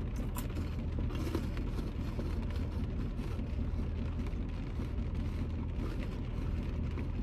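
Steady low rumble of a vehicle cabin with the engine running, with faint crunching from a large cheese puff being chewed.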